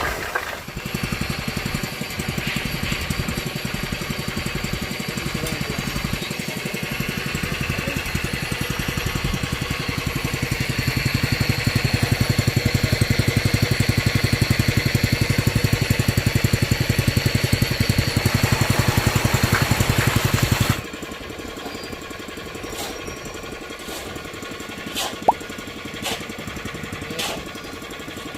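A small petrol engine on concrete-pouring equipment running steadily with a rapid pulsing beat, getting louder about ten seconds in. It cuts off abruptly after about twenty seconds, leaving quieter site noise with a few scattered clicks and taps.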